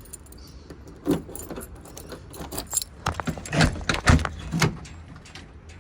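A bunch of keys jangling as a key is worked in a car door lock, with a run of sharp clicks and knocks from about three to nearly five seconds in.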